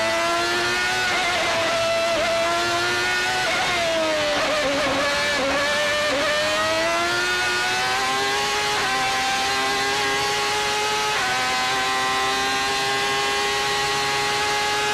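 Ferrari 412 T2's 3.0-litre V12 Formula One engine at racing speed, heard from the onboard camera. The high-pitched note climbs and drops with the gear changes, dips about four to six seconds in, then climbs again and holds high.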